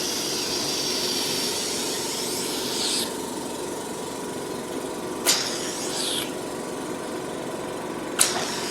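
Facial machine's vacuum pump running with a steady hum while the dermabrasion handpiece's suction hisses for about the first three seconds, then gives short sharp hisses about five and eight seconds in.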